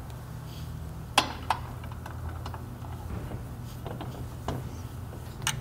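Metal clicks and clinks of a clutch spring compressor and hand tools as a UTV's primary clutch is compressed and reassembled: a sharp click about a second in, then a few lighter ticks, over a steady low hum.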